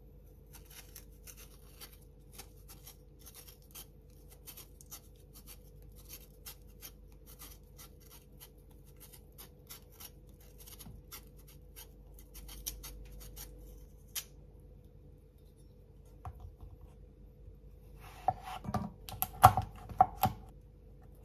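Kitchen knife paring the skin off a persimmon: a long run of small scratchy clicks as the blade cuts through the peel. Near the end comes a brief cluster of louder knocks on the wooden cutting board.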